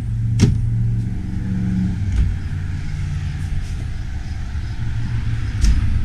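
Wooden cabinet doors being opened and handled, with a sharp click about half a second in and softer knocks later, over a steady low mechanical hum.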